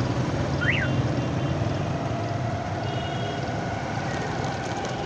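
Riding a motorcycle through city traffic: steady engine and road noise, with a brief high chirp just under a second in.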